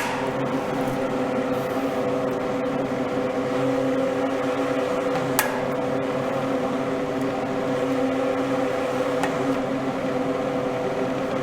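An inexpensive 150 mm inline duct fan is running, blowing air through a 125 mm ventilation duct whose outlet is fitted with a magnetic vent grille. Its motor gives a steady hum over the rush of air, and the grille adds no whistle or buzz. There is a sharp click right at the start and another about five seconds in.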